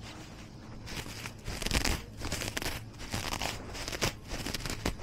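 Irregular crunching and crinkling, a dense run of rustling crackles that starts about a second in and is loudest a little under two seconds in.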